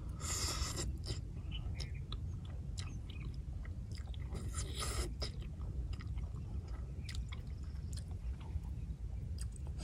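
A person eating instant noodles with chopsticks: chewing, with two longer noisy slurps, one right at the start and one about halfway, and scattered light clicks in between.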